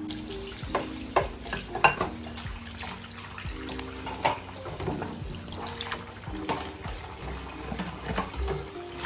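Kitchen tap running into a sink while dishes are washed and rinsed, with repeated light clinks and knocks of bowls and plates, some of them set into a plastic dish rack.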